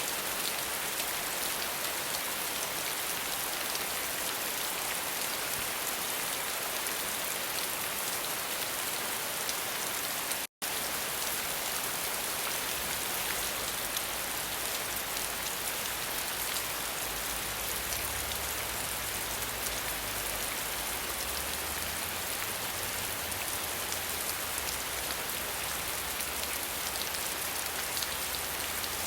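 Steady, dense rain falling and pattering on surfaces, with a momentary cut to silence about ten seconds in before it resumes.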